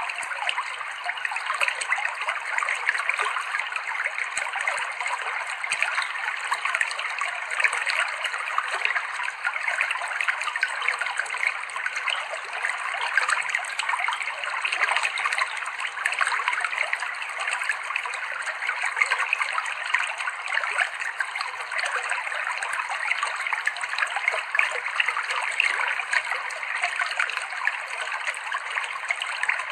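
Clear river water flowing and trickling over rocks, a steady babbling without breaks.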